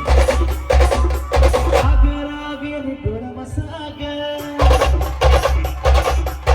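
Live band music: a held melody line over loud, heavy drumming. About two seconds in, the drums drop out, leaving the melody alone for a couple of seconds, then they crash back in.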